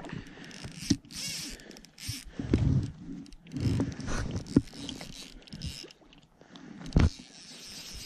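Handling noise right at the microphone: irregular rubbing and scraping with several sharp knocks, the loudest about seven seconds in.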